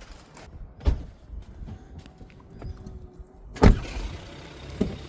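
Knocks and thuds of people getting into a car, with a loud door slam about three and a half seconds in. A low steady rumble follows the slam.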